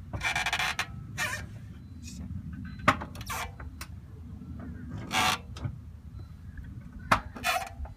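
Rear brake of a 2003 Volvo S40 making its odd noise as the parking brake is applied and released: several short scraping bursts with a couple of sharp clicks. The rear caliper causing it turned out to be seized.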